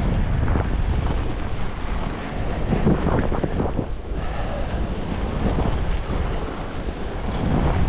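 Wind rushing and buffeting over the camera microphone of a skier moving downhill, with the hiss of skis on snow swelling with the turns, strongest about three seconds in and again near the end.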